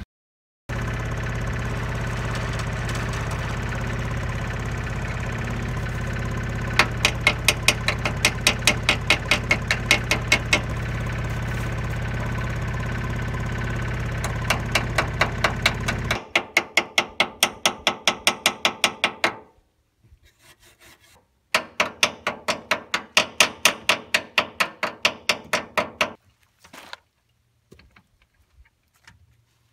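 Steady mechanical hum for about fifteen seconds, with a quick run of even ticks partway through, during welding repair of a kei truck's broken steel frame. It then stops, and two bouts of fast rhythmic hand-tool strokes on steel follow, about six a second.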